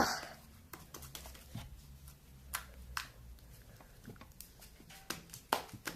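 Sticky slime being squeezed and pulled apart by hand: irregular small wet clicks and squelches, with a short louder smack at the start.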